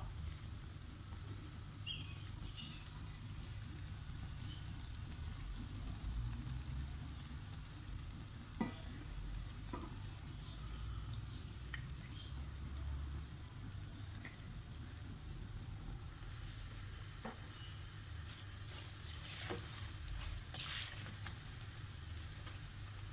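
Potato-and-onion pakoras deep-frying in hot oil in a karahi, a steady sizzle as they brown on their second side, with a few scattered light clicks.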